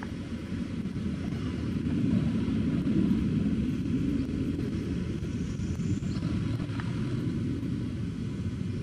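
Low, steady engine rumble, swelling to its loudest two to three seconds in, then easing a little.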